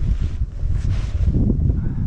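Strong wind buffeting the camera microphone: a rough low rumble that swells about a second and a half in.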